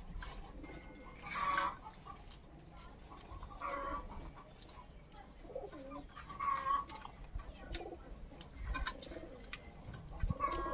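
A chicken calling in short clucking calls, four of them a couple of seconds apart, with a few faint clicks in between.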